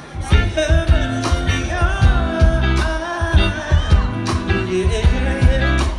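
Live band playing: a male lead vocalist singing a held, wavering melody over electric guitar, bass guitar and drums, with drum hits at a steady beat.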